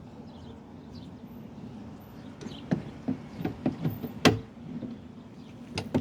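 A lift gate gas strut's socket end being worked onto its ball stud: a few short knocks and clicks, then a sharp snap a little after four seconds in as it seats, with another click near the end. A steady low hum runs underneath.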